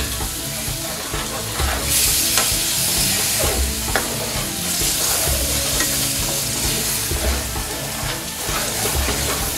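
Lamb rogan josh curry sizzling in a metal pan over a gas flame, freshly thinned with a ladle of base gravy, while a metal chef's spoon stirs and scrapes through the sauce. The sizzle grows louder about two seconds in, with a few short scrapes of the spoon.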